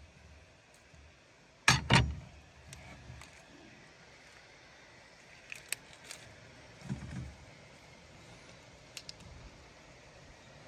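Knife and wooden cutting board knocking and clicking on a pickup truck's metal tailgate as game meat is cut and handled: two loud knocks about two seconds in, then scattered lighter taps and clicks.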